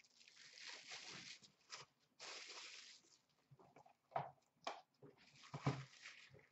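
Plastic shrink-wrap on a hockey puck rustling and crinkling as it is handled, in two stretches. Then come a few light knocks and one louder thump as things are put down into a plastic bin.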